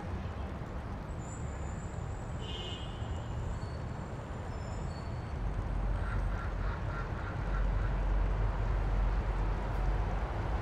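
Steady low rumbling ambient noise fading in and slowly growing louder, with a few faint high chirps and whistles in the first half.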